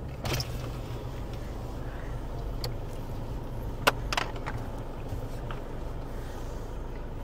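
Steady low vehicle rumble from driving slowly, with a sharp click about four seconds in and a few lighter knocks and rattles.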